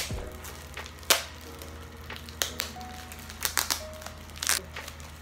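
Plastic packaging crinkling and crackling as it is handled and unwrapped, with a few sharp crackles and clicks scattered through.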